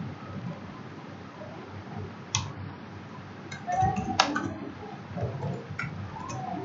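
Computer keyboard keys clicking in a few short, irregular runs of keystrokes while HTML code is typed.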